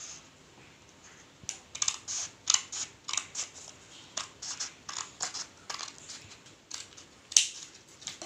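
Hand scissors snipping through folded paper: a run of short cuts, about two a second, starting after a second and a half, with the loudest snip near the end.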